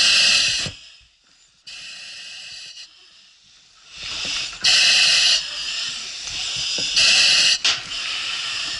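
Firefighter's compressed-air breathing apparatus hissing with each inhalation through the mask's demand valve: three loud hissing breaths, the first followed by a quiet spell of a few seconds.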